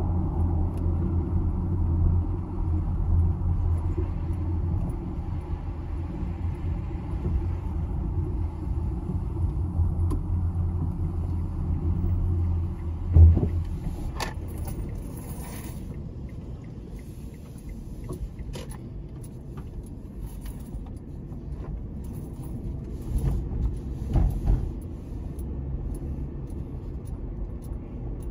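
Car road noise from inside a moving car: a steady low rumble that drops away about halfway through, right after a single thump, leaving a quieter drone with a few light clicks.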